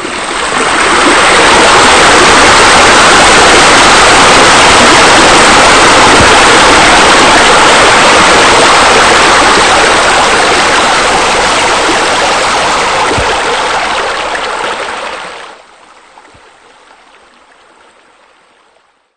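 Steady rush of falling, splashing water from pool water features pouring into the pool. It comes in at the start, drops sharply to a faint wash about fifteen seconds in, and fades out near the end.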